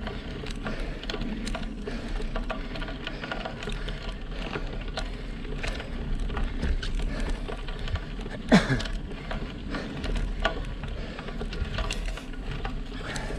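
Road bike riding up a rough, patched lane: the tyres crackle over grit and broken asphalt, with frequent irregular small clicks and rattles and a low rumble. About eight and a half seconds in comes one brief, louder sound that glides down in pitch.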